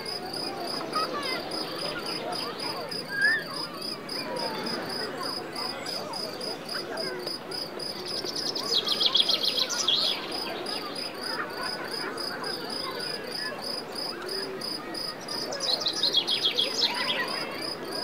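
Crickets chirping in a steady, evenly pulsing high trill, with scattered bird calls over a soft wash of the sea. About half-way and again near the end come two louder rapid trills lasting a second or two.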